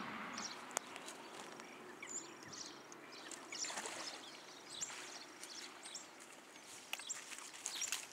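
Faint water splashing as a landing net holding a pike is worked through the water and lifted out, with a few small clicks and short high chirps.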